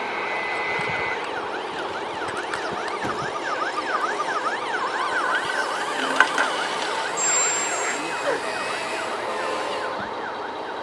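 Siren yelping, its pitch sweeping rapidly up and down about three times a second from about a second in, fading later on; a single sharp click about six seconds in.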